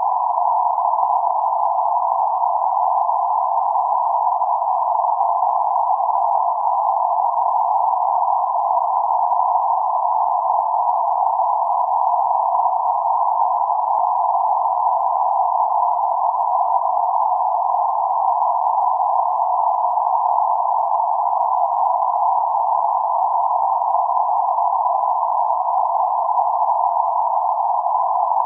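Steady synthetic band-limited noise centred around 848 Hz, a constant hiss confined to a narrow mid-frequency band without change.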